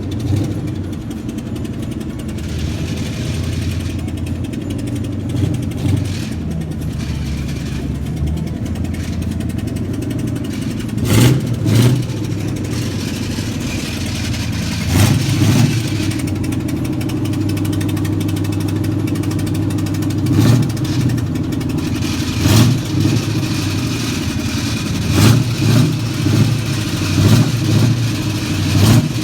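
A vehicle engine idling steadily, blipped in short revs several times in the second half.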